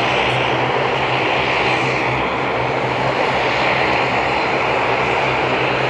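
Aircraft engines running loud and steady: a dense rushing noise with a steady low hum underneath.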